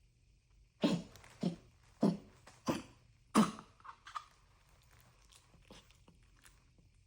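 A coughing fit: five hard coughs in a row, about 0.6 s apart, then two softer coughs at about four seconds, after which it dies down to faint small sounds.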